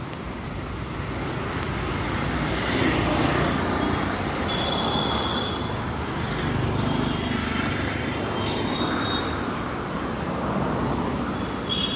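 City street traffic noise: motor vehicles passing, a steady rumble and hiss that swells and ebbs, with a few brief high squeals near the middle and the end.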